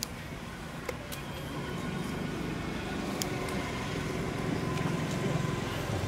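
Low steady rumble of a motor vehicle, growing slightly louder, with a few faint sharp clicks.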